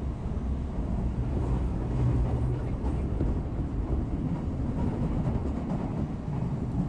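Steady rumble and rail noise of a moving Odakyu Line rapid express train, heard from inside the carriage.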